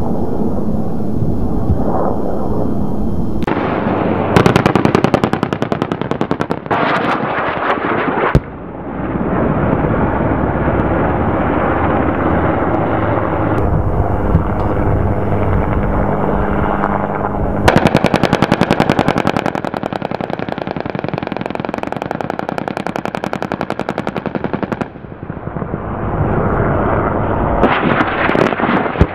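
Machine-gun fire from a helicopter in long rapid bursts: one of about five seconds, a longer one of about seven seconds, and another starting near the end. A low rumble fills the gaps between bursts.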